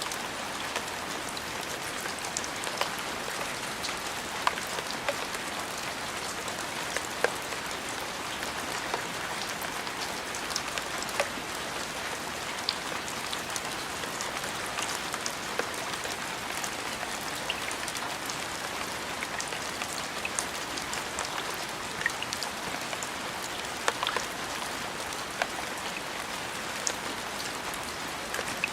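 Steady rain falling, an even hiss with scattered close drops ticking sharply on a surface.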